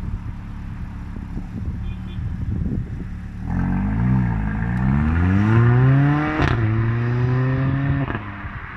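Mercedes CLA 45 AMG's turbocharged four-cylinder on a performance exhaust idling, then launching hard about three and a half seconds in. The revs climb steeply through first gear, a sharp crack comes at the shift to second, the revs climb again more slowly, and the sound falls away abruptly near the end.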